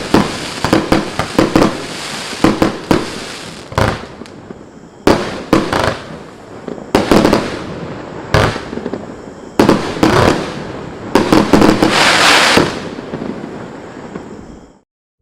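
Mystic Bounce consumer firework battery firing: a rapid string of sharp reports at first, then clusters of shots about every second and a half, with a dense crackling spell late on. The shots fade out and the sound cuts off abruptly near the end.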